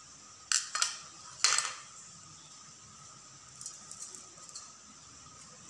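Three sharp metallic clinks on a stainless steel plate about half a second to a second and a half in, the last the loudest, then a few faint ticks of dry grains and lentils being scooped up from the plate.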